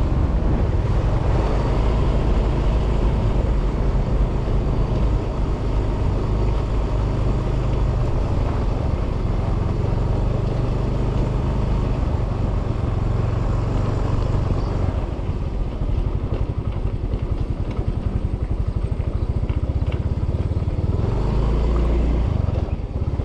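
Motorcycle engine running as the bike is ridden along a rough dirt road, a steady low rumble that eases off about two-thirds of the way through.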